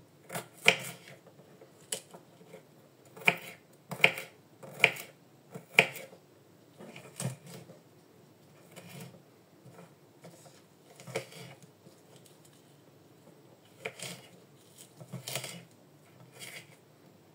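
Small knife chopping unpeeled garlic cloves on a wooden cutting board: irregular sharp taps of the blade striking the board, with soft crunching of the cloves. The taps are loudest and closest together in the first six seconds, then come sparser and softer.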